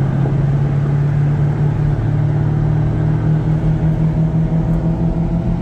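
Supercharged Chevrolet V8 cruising at a steady speed, a low, even engine and exhaust drone heard from inside the car's cabin.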